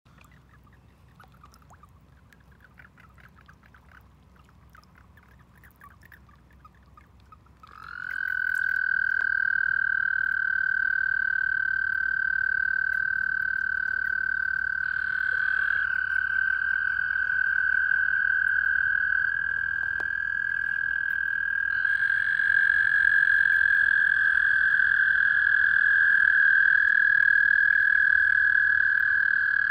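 Male toads giving their breeding trills: a long, steady, high-pitched trill starts about eight seconds in. A second and then a third toad join with overlapping trills at slightly different pitches. Before that there are only faint scattered ticks.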